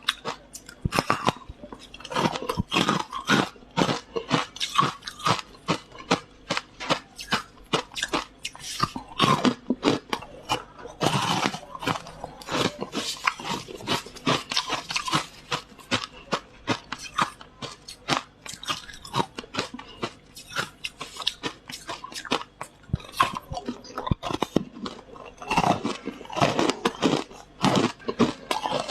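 Frozen freezer frost being bitten and chewed close to the microphone: dense, irregular crunching throughout, with many sharp crunches each second.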